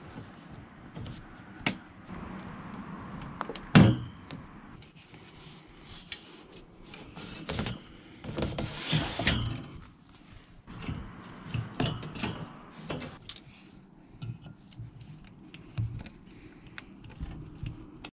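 Irregular knocks, clicks and scraping from objects being handled, with one loud knock about four seconds in and a longer rasping stretch around nine seconds.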